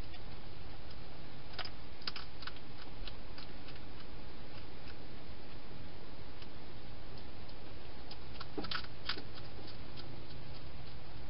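A hedgehog chewing food at a feeding bowl: irregular crisp clicks and crunches, in two small clusters, over a steady background hiss.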